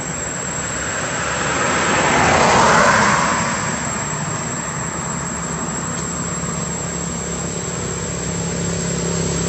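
A vehicle passing on the road: its noise swells to a peak about three seconds in and fades, over a steady background rumble.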